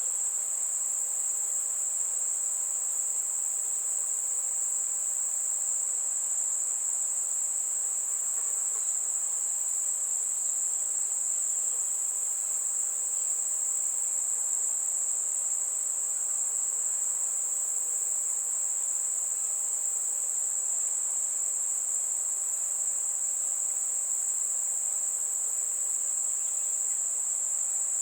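Crickets singing in a dense night chorus: one steady, unbroken high-pitched trill at an even level.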